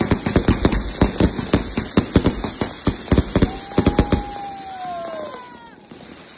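Fireworks going off: a rapid string of sharp bangs, several a second, for about four seconds. Toward the end a few whistles fall in pitch and die away, and it goes much quieter.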